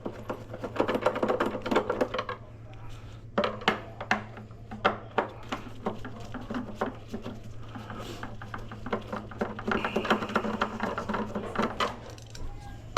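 Small metal clicks and clinks at an irregular pace as a magnetic-tip screwdriver works the terminal screws on wheelchair batteries, over a steady low hum.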